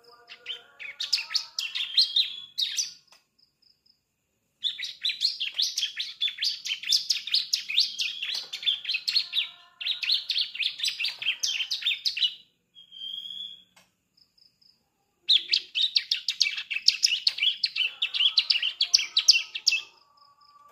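A juvenile bar-winged prinia (ciblek), a young bird just starting to learn its song, singing in rapid chattering runs of quick high notes. There are three long runs, about 3 s, 8 s and 5 s long, with short pauses and a lone note or two between them.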